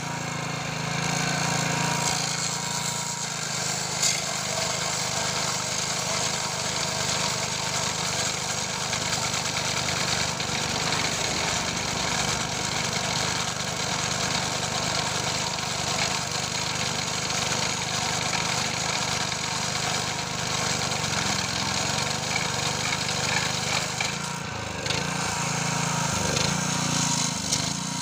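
Petrol-engine abrasive rail cutter running steadily as its cut-off disc grinds through a steel rail, a hiss of grinding over the small engine's sound. The grinding drops away for a moment near the end.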